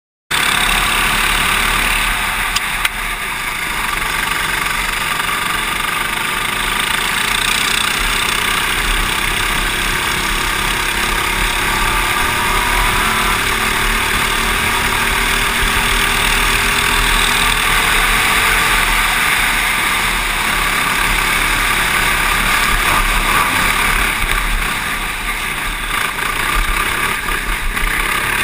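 Racing kart engine running hard at track speed, heard from on board with rushing air, cutting in suddenly at the start. Near the end the sound dips a little as the kart leaves the track and runs onto the grass.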